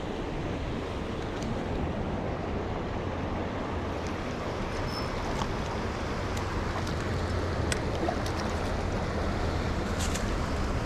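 Steady rushing of a shallow river running over rocks, with a few small sharp clicks in the second half.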